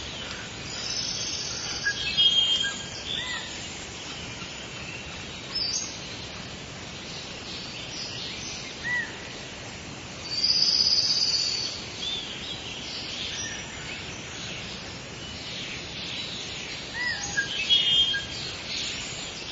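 Tropical rainforest ambience: scattered bird calls and chirps over a steady high insect hiss, with a louder buzzing call lasting about a second near the middle.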